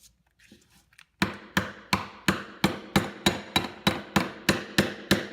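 A hammer tapping a short 1/8-inch steel rod into a drilled hole to make a sling mount: a steady run of a dozen or so sharp metallic taps, about three a second, starting about a second in.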